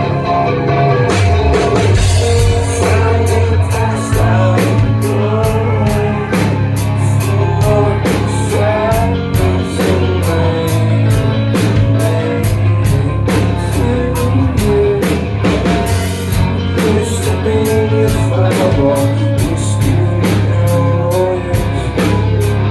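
Rock band playing live: loud guitars, a heavy bass line and a drum kit with steady cymbal hits, the cymbal beat getting busier in the second half.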